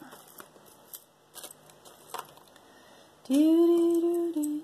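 Small faint clicks of beaded bracelets being handled, then about three seconds in a woman hums one long steady note that steps down a little just before the end.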